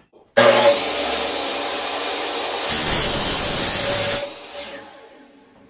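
DeWalt compound miter saw with a metal-cutting blade spinning up with a rising whine, then cutting through aluminium angle stock, the noise growing harsher from about halfway. Just past four seconds the motor is switched off and the blade spins down with a falling whine that fades away.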